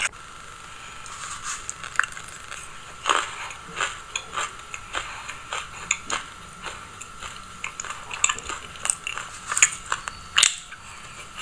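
Close-miked chewing of a mouthful of white sesame seeds: a run of small, irregular crunches and clicks, with the sharpest crack near the end.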